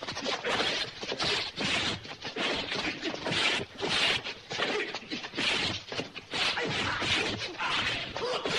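Martial-arts film fight sound effects: a rapid, irregular string of punch and kick hits and swishes, several a second.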